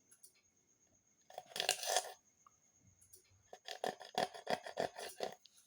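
A metal needle scraping old adhesive off the edges of a phone's frame: one short scrape, then a run of quick back-and-forth strokes.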